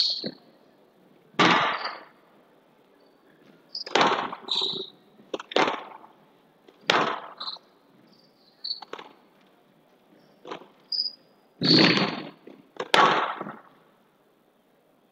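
Squash rally: the ball struck by rackets and rebounding off the walls of a glass court, giving sharp echoing knocks at irregular intervals of about a second. Short high squeaks of court shoes on the floor come between the knocks.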